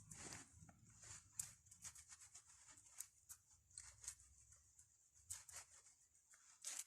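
Near silence with faint, scattered small clicks and light rubbing: a disc brake pad being handled and caliper grease worked onto its backing plate by hand.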